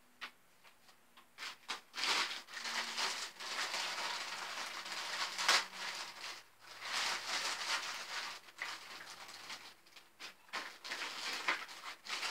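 Plastic packaging bags crinkling and rustling by hand in irregular bursts as stroller wheels are unwrapped.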